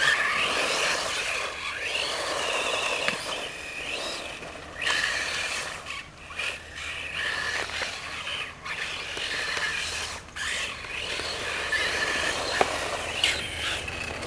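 Radio-controlled buggy's motor whining as it is driven around, the pitch rising and falling with the throttle and dropping out briefly a few times, over the hiss of its tyres on the court.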